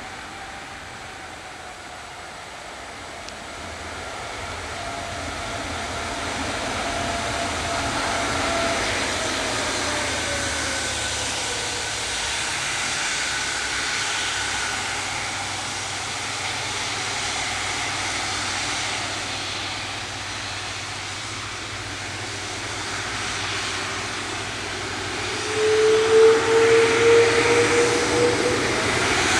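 Airbus A330-300's Rolls-Royce Trent 700 jet engines whining at low power as the airliner turns on the runway. The whine slowly falls in pitch, the sound grows louder overall, and a stronger whine comes in near the end.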